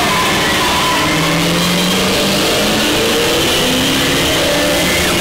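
Radiator Springs Racers ride car speeding along the racing track: a steady rush of wind and vehicle noise.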